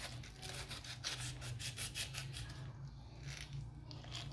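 Kitchen knife cutting and scraping through the skin of a roasted pineapple: a rapid series of short rasping strokes that thins out after about two and a half seconds.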